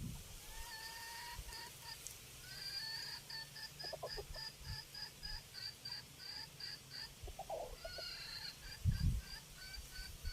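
A bird calling in a fast run of short, high, evenly spaced notes, about four a second, with a brief low rumble near the end.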